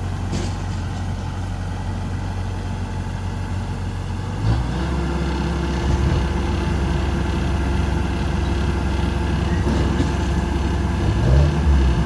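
Combine harvester's diesel engine running steadily under a low drone. About a third of the way in the sound steps up as a steady higher hum joins the engine note.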